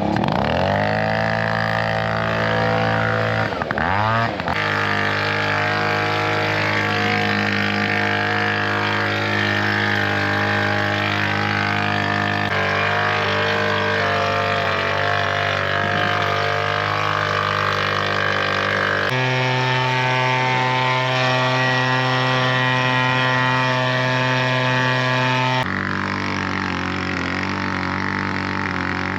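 Leaf blower running steadily while blowing chaff and dust off a combine. Its pitch sweeps as it comes up at the start, dips and recovers about four seconds in, and changes tone abruptly twice later on.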